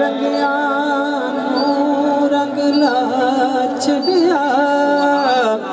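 Male singer drawing out a wordless, ornamented melodic passage of a Punjabi devotional kalam over instrumental accompaniment, amplified through a PA system. The held notes waver and bend, with a run of ornaments about three to four and a half seconds in.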